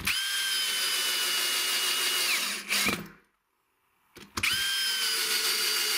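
Drill-driver driving long self-tapping screws through two layers of cement-bonded particle board into plywood: two runs of steady motor whine, one at the start and one from about four seconds in. The first run ends with a slight drop in pitch as the screw seats.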